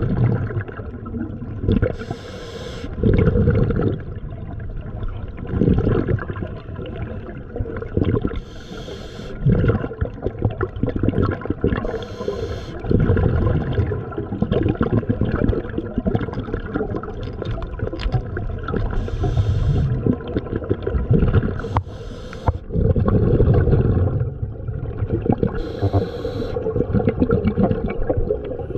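Muffled water sound, as heard underwater, with a surge of hissing bubbles every three seconds or so.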